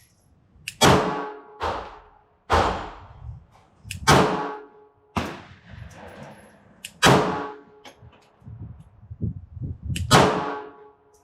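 Smith & Wesson Bodyguard 2.0 .380 ACP pocket pistol firing about seven single shots at an irregular slow pace, one to three seconds apart. Each shot is a sharp crack that rings off with a short echo.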